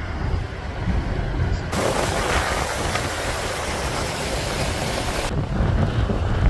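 Muddy storm runoff gushing out of a drain outlet: a steady, full rushing hiss of water for a few seconds in the middle. Before and after it there is a low rumble of wind on the microphone.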